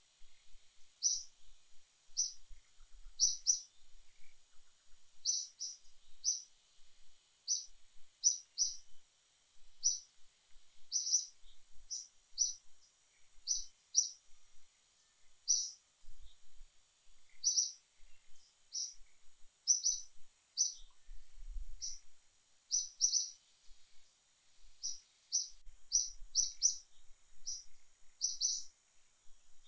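A small bird chirping over and over: short high notes at an uneven pace, about one or two a second.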